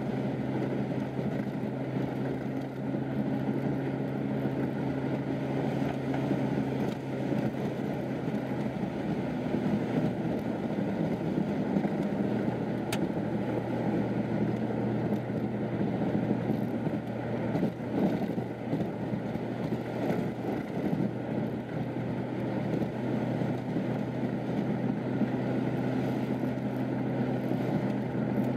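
Steady road noise and a low engine hum heard from inside a vehicle's cabin while it drives at highway speed on paved road.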